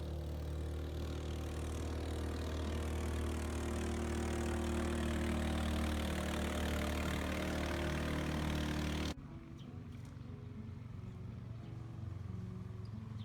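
A small boat's engine running steadily, a low hum with a rushing noise above it. About nine seconds in, the sound drops suddenly to a quieter, similar engine hum.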